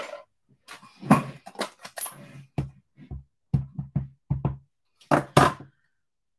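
A clear stamp on an acrylic block tapped repeatedly onto an ink pad to ink it: a string of short, sharp taps, about a dozen, with a sharper click about two seconds in.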